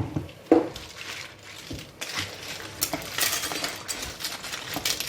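Dishes and cutlery clinking and clattering, a few sharp knocks among them, as food and tableware are handled.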